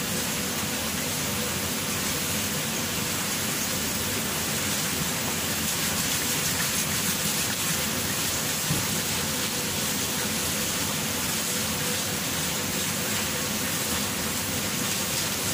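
Water running steadily from a tap, an even rushing hiss.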